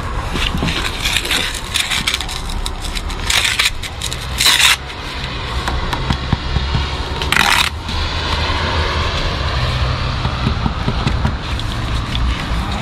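Steel trowel scraping and scratching against brickwork and gritty mortar in short strokes, with small ticks between and three louder scrapes about three, four and a half, and seven and a half seconds in.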